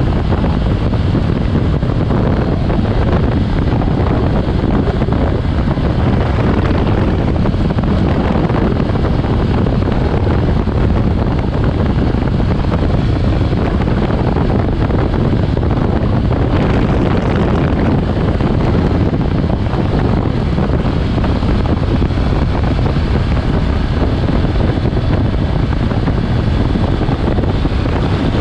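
Steady, loud wind rush buffeting the microphone of a motorcycle under way, with the engine and road noise mixed in underneath.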